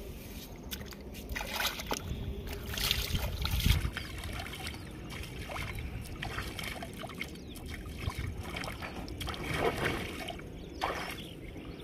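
Shallow river water splashing and sloshing irregularly as a barefoot man wades and dips his hand in the water.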